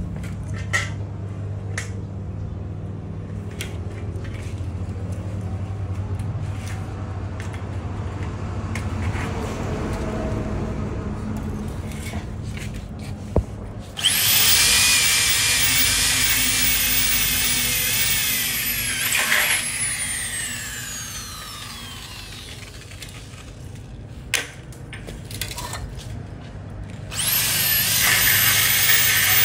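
Red corded electric drill boring into aluminium profile tubing. A loud high whine starts suddenly about halfway through, runs for about five seconds, then falls away as the motor winds down; a second run starts near the end. Before the first run there is a low steady hum with scattered light metallic clicks.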